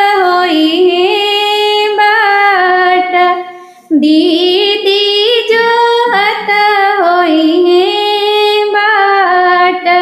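A woman singing a wedding folk song in long, held, gliding phrases, with a brief pause between phrases about three and a half seconds in.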